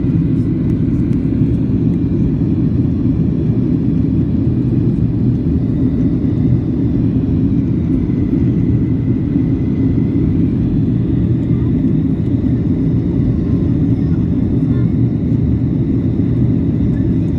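Steady cabin noise inside a Boeing 737 on its approach, flaps extended: a constant low rumble of engines and airflow, with a faint high whine.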